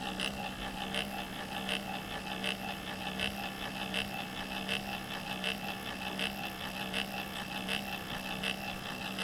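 Small 48-step stepper motor spinning an arm at its top speed of about 70 RPM: a steady hum with a regular ticking about three times a second.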